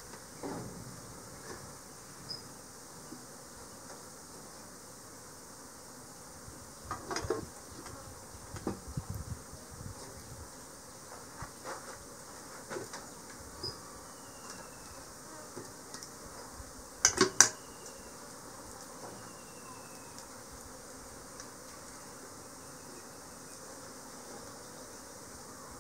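Bees buzzing around the pots of fresh honey, now and then flying past with a falling pitch. Metal pots and utensils clank a few times, loudest as a quick cluster of sharp knocks about two-thirds of the way in.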